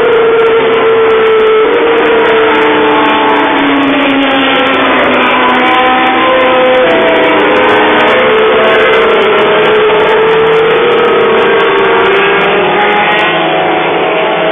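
A field of 1970s Formula 1 race cars passing at high revs, several engine notes overlapping and rising and falling in pitch as the cars change gear and go by.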